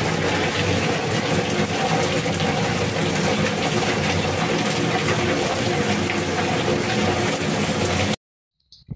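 Heavy rain pouring off the edge of a tiled roof in streams and splashing down below, a dense, steady rush of water. It cuts off suddenly near the end, leaving a few faint cricket chirps.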